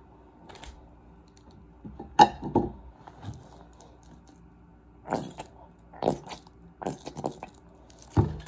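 Aluminum foil crinkling as it is handled and folded around a piece of meat, in several short bursts, the loudest about two seconds in.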